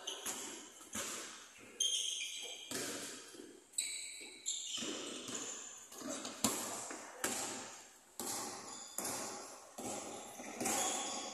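Basketball game sounds on an indoor court: a ball bouncing again and again, with short high sneaker squeaks a few seconds in, all echoing in a large gym.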